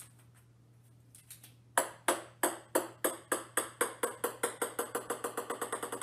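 A ping-pong ball bouncing on a hard floor, starting about two seconds in. The bounces come faster and faster and grow quieter as the ball settles.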